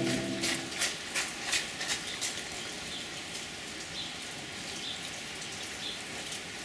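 Steady rain falling, heard as an even hiss, with a quick run of sharp drops tapping close by in the first two seconds or so.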